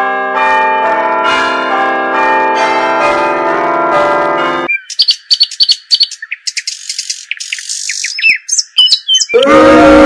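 Bell sound effect: several bells ringing with overlapping tones, struck again and again, stopping suddenly about four and a half seconds in. Then a bird-chirping effect of short, quick chirps, and a loud booing effect starts right at the end.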